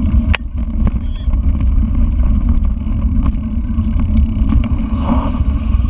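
Mountain bike riding over a dirt trail, heard from a camera on the bike or rider: a steady low rumble of tyres on the rough ground, with scattered sharp clicks and knocks as the bike jolts over bumps.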